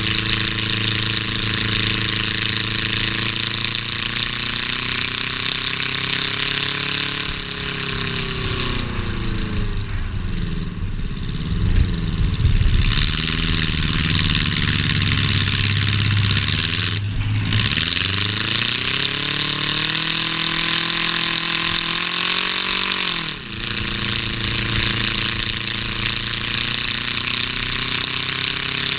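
Race car's engine running hard, heard from inside the stripped cabin, with its pitch falling as the car slows about a third of the way in and climbing again as it speeds back up. The pitch drops sharply once about three-quarters of the way through, then holds steady. A steady rush of wind and road noise comes in through the glassless windows.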